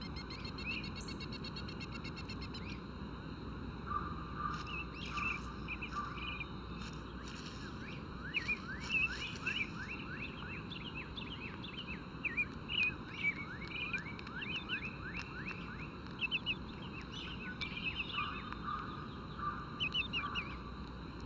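Woodland birdsong over a steady low background hiss: a buzzy trill in the first few seconds, then many quick chirps from several birds, with a lower whistled note twice.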